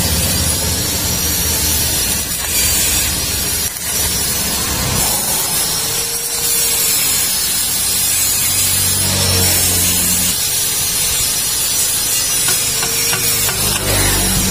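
Stick (arc) welding: the electrode arc crackling and hissing steadily as a steel exhaust extension pipe is welded onto the muffler.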